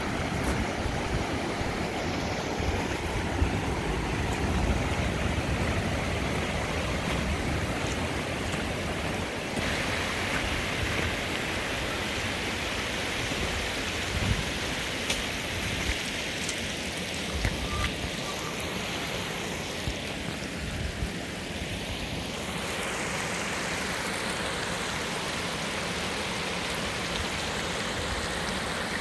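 Muddy floodwater flowing fast across a road and yard: a steady rushing of moving water.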